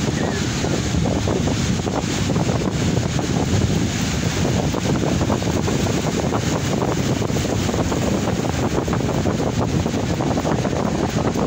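Wind buffeting the microphone, a steady deep rumble, over small sea waves breaking and washing up the shore.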